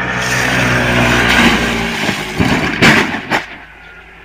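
A motor vehicle passing close by, its engine and road noise swelling and then fading about two seconds in, followed by three sharp knocks.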